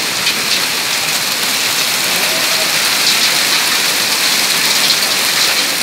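Heavy rain mixed with hail pouring down on pavement: a dense, steady hiss with many small ticks of drops and hailstones striking.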